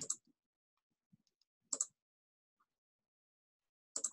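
Three short, sharp computer clicks about two seconds apart, each a quick double, with silence between, made while the screen share is being stopped and restarted with computer audio.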